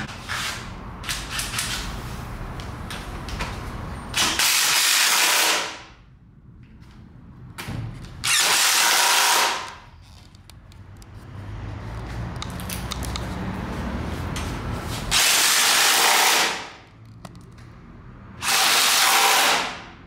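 Cordless drill-driver running in four short bursts of about a second and a half each, driving bolts at the front wheel and fork of a motorcycle being assembled. Quieter clicks and handling noise come between the bursts.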